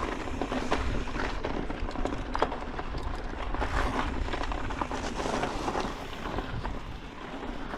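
Orbea Wild FS mountain bike rolling over a rocky gravel trail: tyres crunching on loose stones, with scattered clicks and rattles from the bike and wind rumbling on the microphone.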